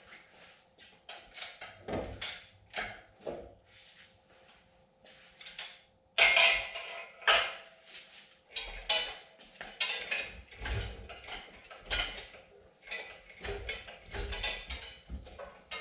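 Irregular metallic clinks and clanks of hand tools against metal parts, with a few louder knocks about six and nine seconds in.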